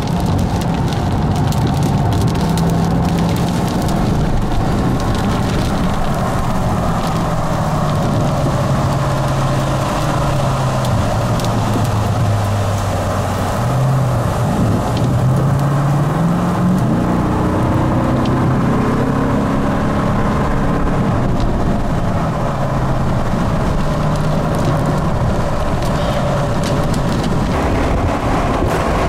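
Car interior noise while driving in rain: the engine's hum over steady road and wind noise, dropping in pitch and then rising again about halfway through as the car speeds up, with rain pattering on the windshield.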